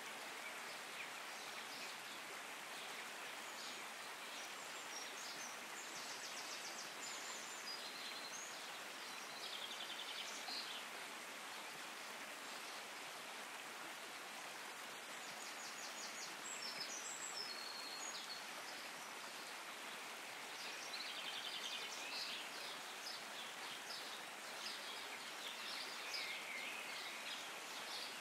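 A small stream running steadily over rocks, with birds chirping high and briefly several times.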